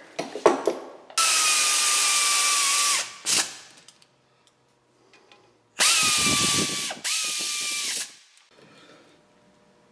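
Cordless electric ratchet spinning in the front brake caliper bolts in three bursts, the first about two seconds long, plus a short blip. Its motor whine sags slightly as the bolts run down.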